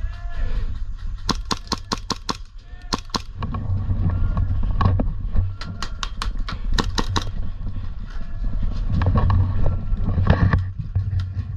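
Airsoft guns firing in quick strings of sharp cracks, several shots at a time with short gaps between strings, over a steady low rumble.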